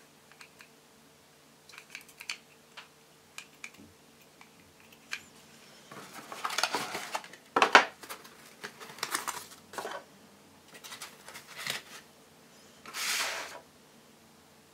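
Handling noises of unpacking model parts: scattered light clicks of hard plastic pieces, short bouts of scraping and rustling from foam inserts and a cardboard box, and one sharp knock about halfway through, the loudest sound.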